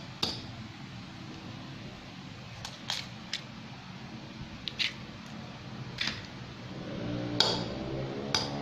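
Eggs being cracked: a scattered series of short, sharp clicks and taps as eggshells are knocked and broken open.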